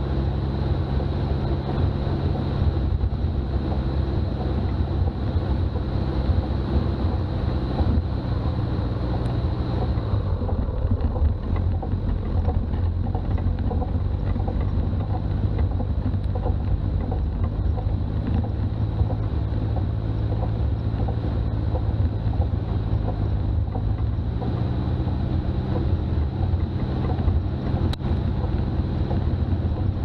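Toyota BJ40 Land Cruiser's diesel engine running steadily while driving, with low road and wind rumble. The engine note drops about ten seconds in and rises again some fourteen seconds later.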